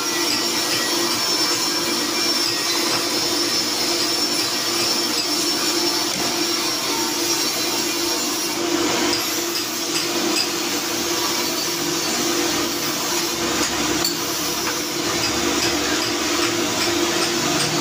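Pillar drill press running steadily, its bit drilling into a flat workpiece held on the table.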